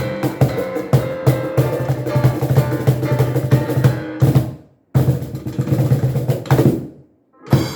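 Music with drums and percussion: a busy beat of drum hits over sustained pitched notes. It breaks off into silence twice, about halfway through and again near the end, each time restarting abruptly.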